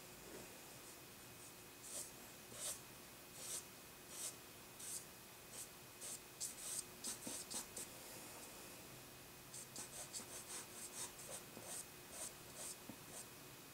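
Faint, dry strokes of an eraser pencil dragged across paper while lifting highlights in charcoal hair. Single strokes come about once a second at first, then quicker runs of short strokes about six and ten seconds in.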